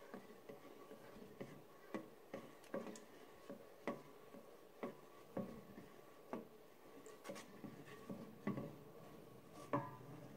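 Utensil stirring a pan of melting butter, golden syrup and black treacle, knocking lightly and irregularly against the pan's side every half-second to a second, the loudest knock near the end, over a faint steady hum.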